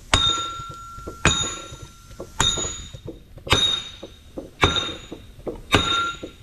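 Sledgehammer blows on the steel end of a Caterpillar D9R equalizer bar, six strikes about a second apart, each with a short metallic ring. The part being struck is stuck fast on the bar and is being knocked off.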